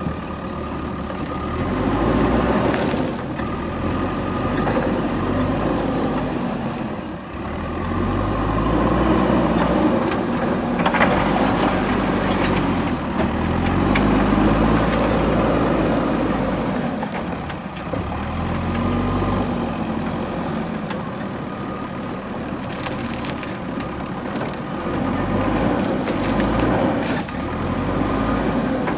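Diesel engine of a JCB backhoe loader working, its pitch rising and falling again every few seconds as the machine works under hydraulic load, with a few sharp knocks along the way.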